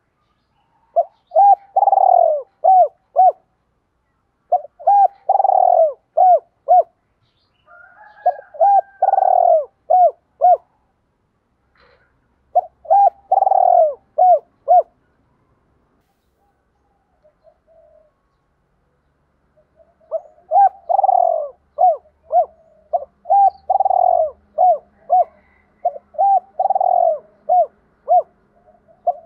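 Spotted dove cooing in repeated phrases, each a long falling coo followed by three or four short coos. Four phrases come a few seconds apart, then a pause of several seconds, then a quicker, denser run of phrases. It is the calling of a decoy dove used to provoke rivals to fight.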